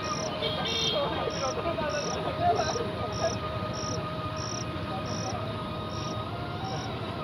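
A cricket chirping in a steady rhythm, about one and a half short high chirps a second, over a low steady background hum.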